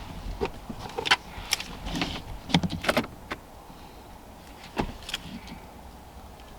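Irregular clicks and light knocks of a screw and hand tool being handled while fastening a wiper switch to a car's steering column, a few sharp taps about one to three seconds in and a single louder one near five seconds.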